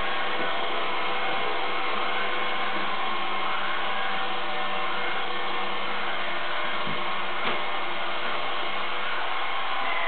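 Robot vacuum cleaner running steadily, a constant motor and brush noise with several steady whining tones in it. There is a faint click about seven and a half seconds in.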